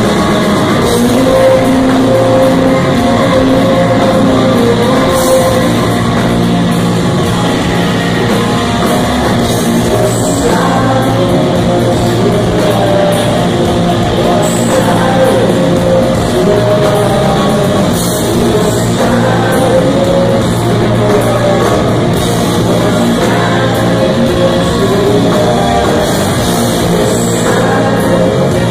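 Live rock band playing loudly, with electric guitars, bass and drums under a male singer's long held vocal lines.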